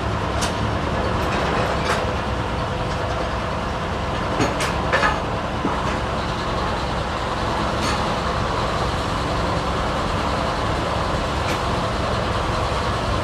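1924 Frick sawmill and its drive engine running steadily, with scattered knocks and clanks as the log is rolled over on the carriage; the loudest knocks come about four to five seconds in.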